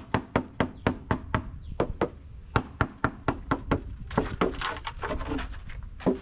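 A small hammer rapidly knocks a composite plastic mold panel on a freshly cast concrete planter, about three to four blows a second, to free the panel from the set concrete. After about four seconds the blows give way to a rougher scraping as the panel comes away, and one more knock lands near the end.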